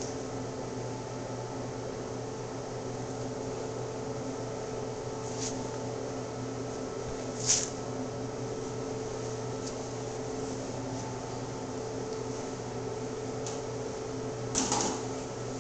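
Steady mechanical hum in a small room, with a few brief scuffs of shoe soles on a smooth concrete floor. The sharpest scuff comes about seven and a half seconds in, and a double one comes near the end.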